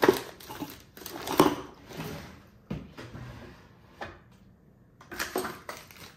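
Rummaging through a box of stored bike parts: irregular knocks and clatter of small hard objects, with a few louder knocks spread through.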